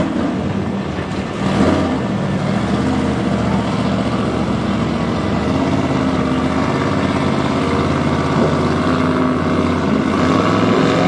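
Drag car's engine idling loudly and unevenly at the starting line. Near the end a higher engine note revs in rising sweeps, the motorcycle in the other lane.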